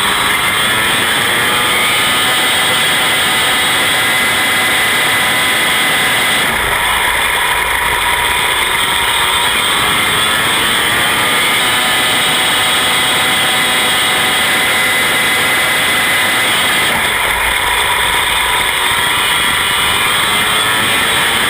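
Hurricane Midget race car's engine running hard at speed, its pitch rising and falling continuously. The engine note shifts about every ten seconds, in step with laps of the oval.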